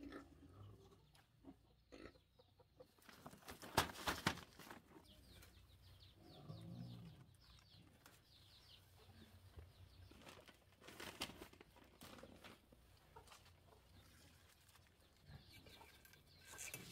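Chickens clucking faintly, with short spells of leaf rustling and stem snapping about four seconds in and again about eleven seconds in, as chayote fruit are pulled off a vine trellis.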